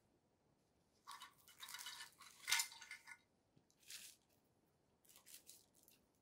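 Crinkly wrapping of a packet of travel plug adapters rustling as it is opened by hand, for about two seconds starting a second in. A few shorter rustles and light clicks follow as the small plastic adapters are handled and set down.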